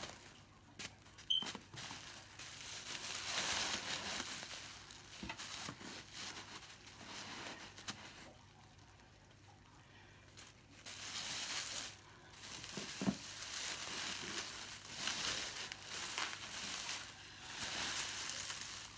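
Plastic bubble wrap crinkling and rustling as it is handled and pulled off a wrapped parcel, in bouts with a quieter lull of a few seconds around the middle.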